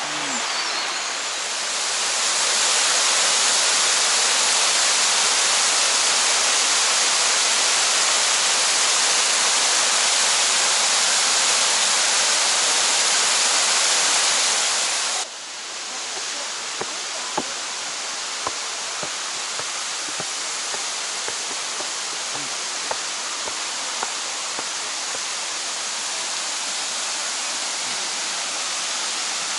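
Steady rushing and splashing of Shiraito Falls, a wide curtain of water spilling down a rock face. About halfway through it drops suddenly to a softer level, with a few faint clicks over it.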